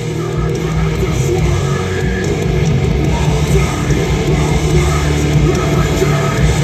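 Loud heavy rock music with electric guitar, playing continuously.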